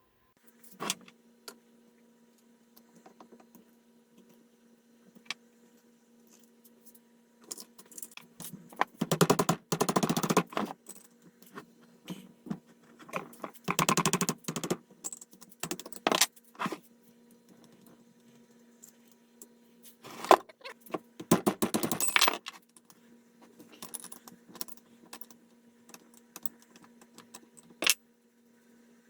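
Metal hand tools clicking and clinking on a Cannondale 440 ATV engine during teardown: scattered single clicks, with three louder runs of rapid clicks lasting a second or two each. A faint steady hum sits underneath.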